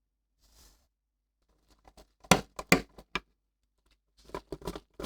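A series of sharp clicks and light knocks from hard parts being handled, in two bursts of several quick strikes each, the second starting about four seconds in.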